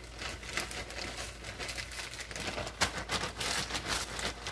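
Packaging being crumpled: a run of irregular crinkles and crackles that stops suddenly near the end.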